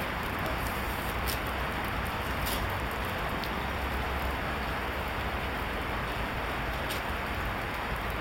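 Steady, even background hiss with a few faint scattered ticks.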